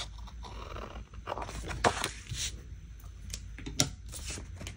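Small scissors snipping through a paper sticker, then paper rustling with a couple of sharp clicks, one about two seconds in and a louder one near four seconds.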